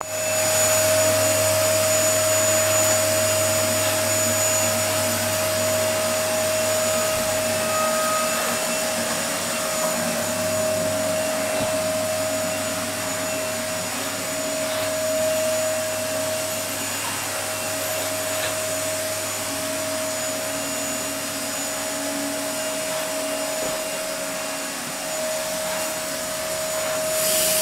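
Steady whir of a small electric motor with a constant tone and hum that runs without change. Near the end a basin mixer tap is turned on and water briefly splashes into the basin.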